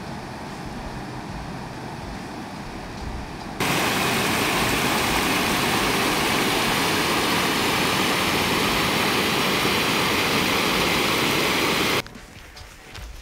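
Outlet creek of a mountain lake rushing over rocks in a steady whitewater rush. About four seconds in it jumps much louder, close beside a small cascade, and it cuts off abruptly near the end.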